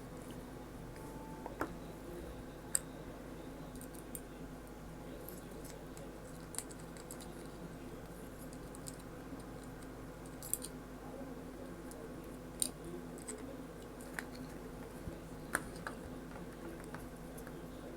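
Scattered light clicks and taps, about a dozen spread irregularly, from handling small tools and parts while rewiring a soldering iron handle. They sit over a faint steady hum.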